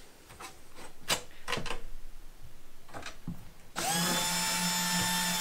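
Cordless drill/driver driving a screw through aluminium T trim into the door edge. Its motor runs at a steady pitch for about a second and a half near the end, then winds down. Before that come small clicks and knocks as screws and trim are handled.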